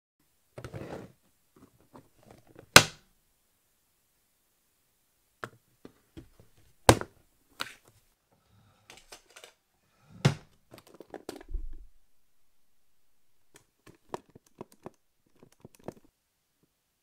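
Scattered knocks and thunks of a small aluminium-framed case being handled on a wooden desk, with light rustling between them. The sharpest knock comes about three seconds in, with more near seven and ten seconds and a low thud just after.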